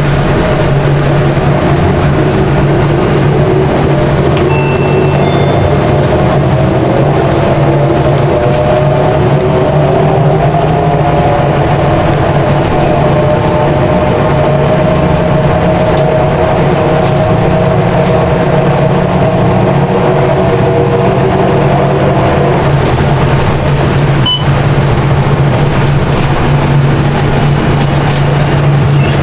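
Volvo B10M Mark IV bus with a Voith DIWA three-speed automatic gearbox under way, its mid-mounted engine a steady low drone from the rear of the cabin. Over it a whirring whine rises in pitch over the first several seconds, holds, then fades away about 22 seconds in: a whirring fault that has gone unrepaired for a year. A brief click about 24 seconds in.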